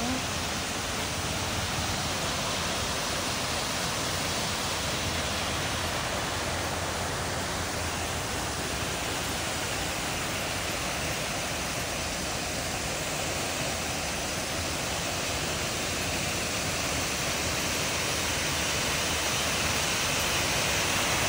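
Stream water rushing steadily, a constant even hiss of flowing water that grows a little louder near the end.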